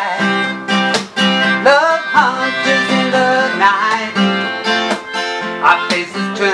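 Acoustic guitar strummed in a steady rhythm under a melodica playing the melody, an instrumental passage between sung lines of a folk song.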